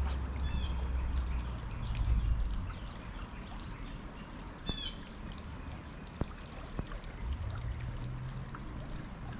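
Creek water running steadily past the bank, with a bird chirping briefly about half a second in and again near five seconds. A low rumble comes in over the first two seconds and again near the end.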